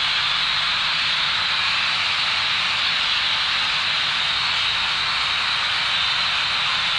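A steady, even hiss that holds the same level throughout, strongest in the upper-middle range.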